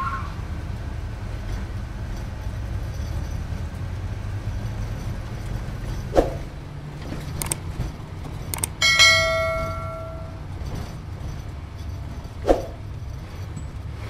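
Subscribe-button animation sound effect: a few mouse clicks, then a bright bell ding about nine seconds in that rings and fades over a second or so, with another click near the end. A low steady rumble runs underneath.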